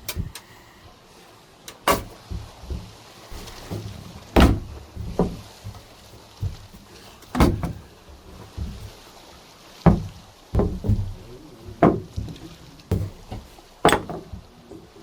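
A series of irregular knocks and thumps, about fifteen over the span, some much louder than others.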